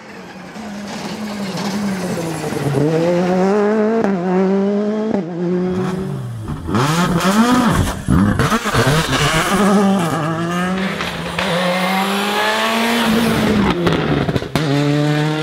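Rally cars' turbocharged 1.6-litre four-cylinder engines revving hard through the gears, the pitch climbing and dropping back at each upshift. About seven seconds in the engine note swoops down sharply as a car passes close by.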